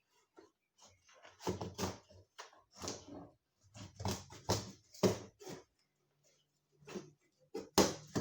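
Cardboard shipping box being opened and handled by hand: irregular scrapes, rustles and knocks, with the sharpest one near the end.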